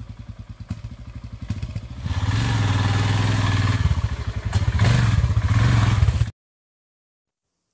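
Royal Enfield Himalayan single-cylinder engine running, quieter at first, then louder and revving as the rear tyre spins in loose dirt. The engine sound cuts off suddenly about six seconds in.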